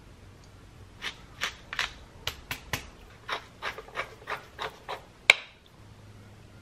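Wooden pepper mill being twisted by hand over a bowl: about a dozen short gritty grinding crunches, roughly three a second, then a single sharp knock.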